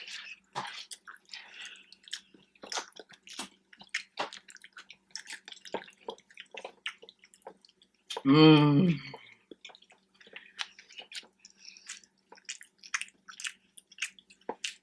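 Wet chewing and lip-smacking of people eating cheesy rotini pasta in vodka sauce: many small, quick smacks and clicks. About eight seconds in, a short hummed voice sound lasts under a second.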